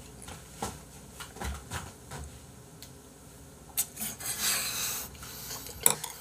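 Light clicks and knocks of wooden chopsticks against bowls and the table, scattered through, with about a second of hissy noise about four seconds in and a sharper click near the end.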